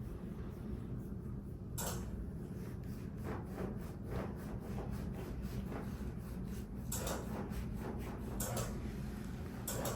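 Hands rubbing and sliding over skin and clothing during a massage, with several brief sharp scuffs about 2, 7, 8.5 and 10 seconds in, over a low steady hum.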